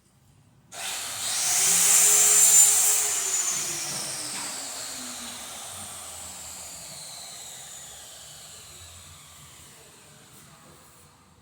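Stanley table saw switched on with a sudden loud whine. About two seconds later it is switched off, and the blade and motor spin down, the whine falling in pitch and fading over about eight seconds.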